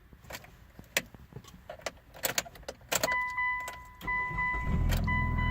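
Handling clicks and knocks, then a dashboard warning chime sounds and beeps from about three seconds in. About a second later the 2003 Mitsubishi Outlander's engine cranks, catches and settles into a steady idle after its misfire codes have been cleared.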